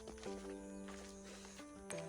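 Faint background music of held notes that change pitch a few times, with a few light ticks.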